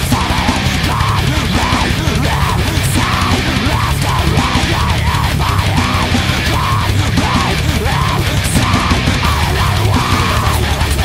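Heavy metal music: distorted electric guitars playing a repeating riff over dense, steady drumming, at a loud, even level.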